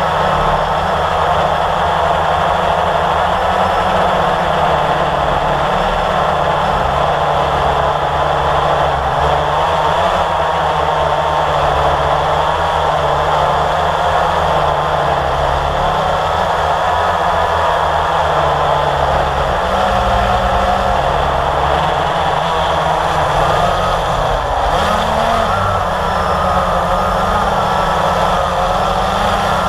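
Blade 350 QX quadcopter's four brushless motors and propellers whining in flight, as heard from its onboard camera: a loud, steady whine whose several pitches waver up and down, over a low rumble.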